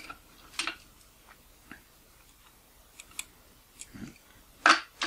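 Scattered light clicks and taps of a small screwdriver being picked up and brought to the lens's small screws, about half a dozen over a few seconds, the loudest near the end.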